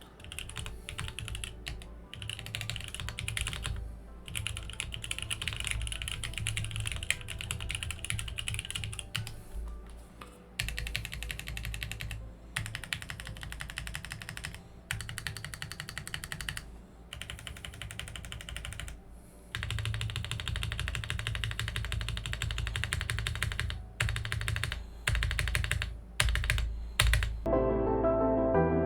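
TGR Jane v2 ME custom mechanical keyboard being typed on, fast runs of keystroke clacks in bursts of a few seconds with short pauses between, over background music. About a second before the end the typing stops and the music carries on alone.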